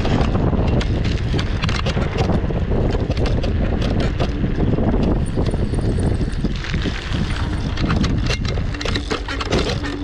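Off-road vehicle driving over rough ground, with heavy wind buffeting the microphone and frequent knocks and rattles from the bumps.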